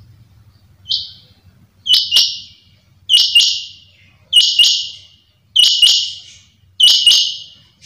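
Rain quail calling: one short high-pitched note, then five sharp two-note calls repeated about once every 1.2 seconds.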